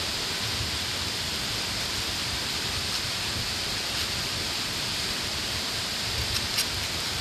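Steady rushing water from a waterfall and river, an even hiss, with two light clicks near the end.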